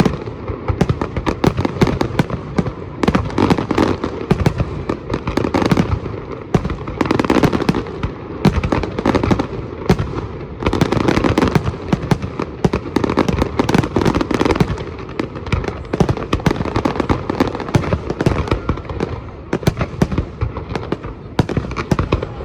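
Fireworks going off in a continuous rapid barrage of bangs and crackles, many reports a second with no pause.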